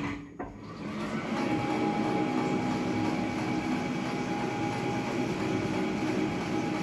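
Powell metal planer running with a steady mechanical drive noise. A steady whine joins it about a second and a half in.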